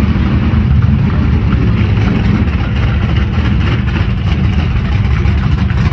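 A car engine running with steady low rumble and road noise.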